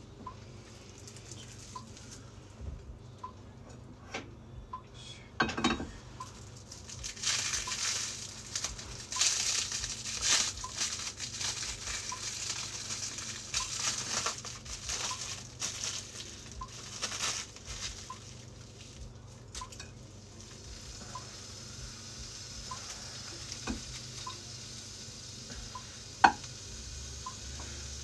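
Plastic food wrap crinkling in irregular bursts while raw beef is handled, then a steady sizzle from the frying pan over the last several seconds, with one sharp click near the end.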